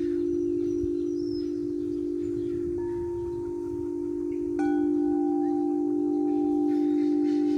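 Wind chime ringing with long sustained low tones. A new, higher note is struck about three seconds in, and a louder strike comes just past halfway, its tones ringing on.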